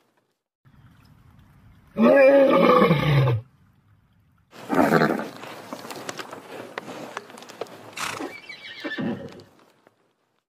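Horses neighing: a loud call about two seconds in whose pitch rises and then falls, another call about a second later, and a shorter one near the end, with scattered light knocks between them.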